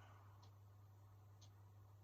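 Near silence: the quiet pause between a sleeping woman's snores. A steady low hum runs under it, with two faint ticks about a second apart.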